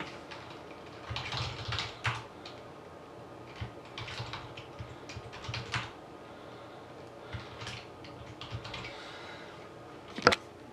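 Computer keyboard typing in short bursts, with one sharper click near the end.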